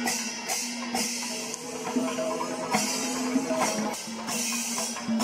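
Kerala temple panchavadyam ensemble playing: ilathalam brass cymbals clash in a quick, steady rhythm over drum strokes, with a held pitched tone underneath.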